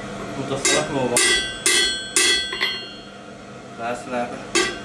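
Hand hammer striking a red-hot stainless steel bar on an anvil, each blow ringing. Five blows come about two a second, then a pause, then one more blow near the end.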